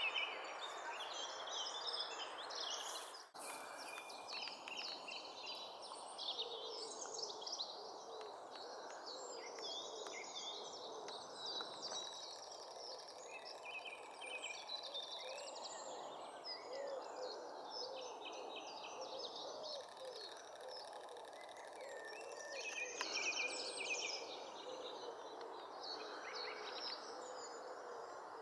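Small birds chirping and singing in short high phrases over a steady outdoor background hiss, with a single sharp click and a brief dip in the sound about three seconds in.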